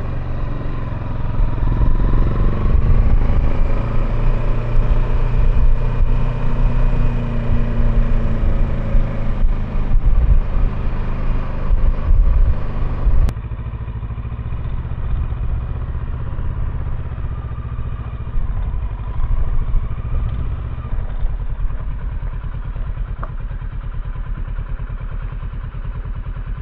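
Kawasaki Versys 650's parallel-twin engine running under way, with road and wind noise. About halfway through, the sound suddenly drops in level and turns duller.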